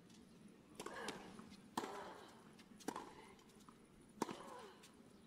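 Tennis serve and rally: a racket strikes the ball four times, about one to one and a half seconds apart. Most strikes are followed by a short grunt from the player hitting.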